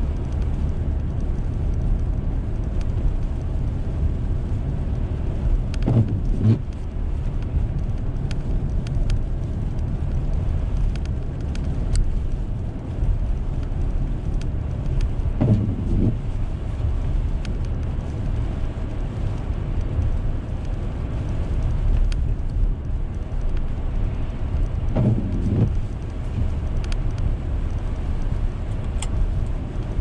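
Steady road and engine noise inside a moving car's cabin on a snow-covered road. The windshield wipers sweep three times, roughly every nine to ten seconds.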